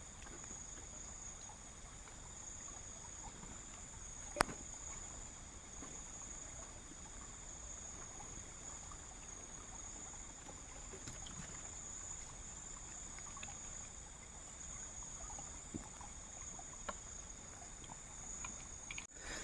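Night insects keeping up a steady high-pitched drone, with scattered small clicks and one sharper click about four seconds in.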